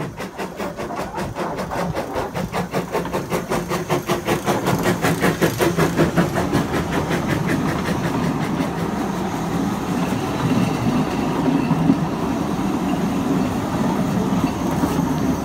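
Narrow-gauge steam locomotive working a train, its exhaust beats quickening to about five a second over the first several seconds. The beats then fade into the steady rumble and clatter of coaches rolling past on the track.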